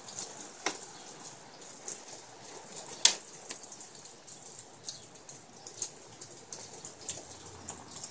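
Quiet handling noises from work on the wooden form boards: scattered faint clicks and taps, with one sharper click about three seconds in.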